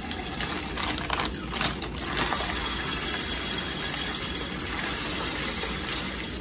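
Dry rice pouring from a plastic bag into a pot of water: a steady, even rushing hiss that cuts off near the end as the pouring stops.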